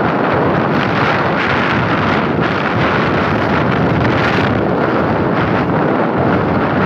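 Loud, steady wind buffeting the microphone while riding in a moving vehicle, mixed with the vehicle's running and road noise.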